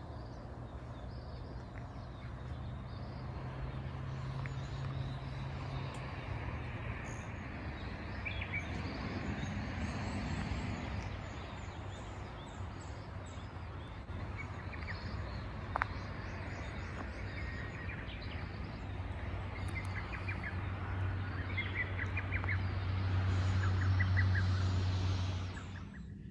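Outdoor ambience: birds chirping in short rapid runs over a steady low rumble, with a single sharp click about sixteen seconds in.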